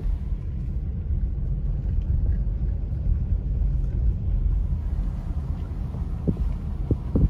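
Car driving slowly, a steady low rumble of engine, road and wind heard from inside the car, with a couple of faint knocks near the end.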